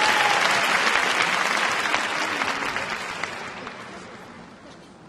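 Arena audience applauding after a skater is announced. The clapping fades steadily and has nearly died away by the end.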